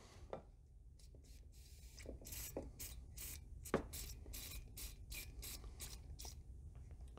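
Faint short scratchy, hissing strokes, about three a second, as penetrating oil is worked onto a seized bolt. They start about two seconds in and stop a little after six seconds.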